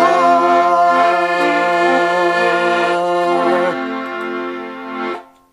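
A man and a woman sing the held last note of a gospel chorus, with a piano accordion playing the chords. The voices stop a little under four seconds in, the accordion holds the final chord alone for another second or so, then cuts off.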